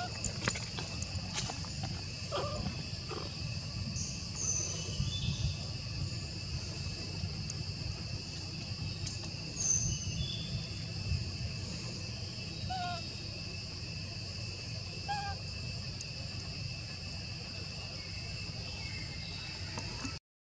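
A steady high buzzing of insects at several pitches, with short chirps now and then over a low rumble.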